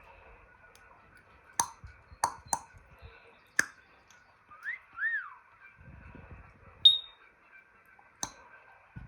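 African grey parrot making a run of sharp clicks, then a short whistle that rises and falls. A brief high chirp follows as the loudest sound, and one more click comes near the end.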